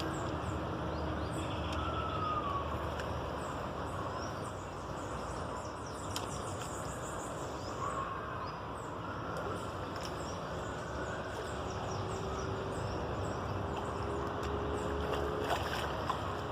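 Steady outdoor background noise with faint, short high chirps scattered through it.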